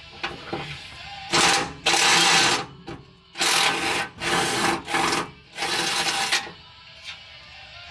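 Cordless power driver spinning out the crossmember-to-transmission bolts in five short runs, with brief pauses between them.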